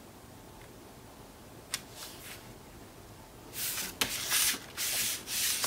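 Sheets of patterned paper sliding and rubbing against the cardstock page as hands shift them into place: a few short rustling strokes near the end, with a light click before them.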